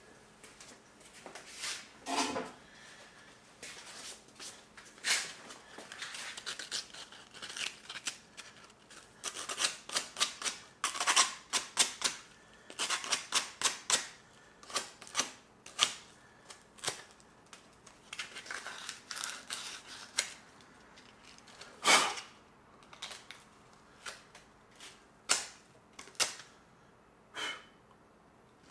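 Irregular clicks, taps and rustling of hands handling parts and cleaning up after cutting a hose, with a few sharper knocks later on.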